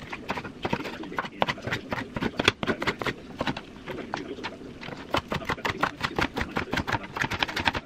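Kitchen knife chopping orange bell pepper on a wooden cutting board: a run of irregular knife strikes on the wood, coming faster in quick bursts in the second half.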